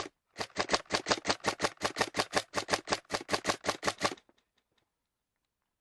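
Airsoft gun firing a rapid, even string of shots, about seven a second, stopping about four seconds in.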